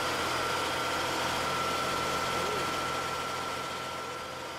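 An engine running steadily with a thin steady whine over a low hum, easing off near the end.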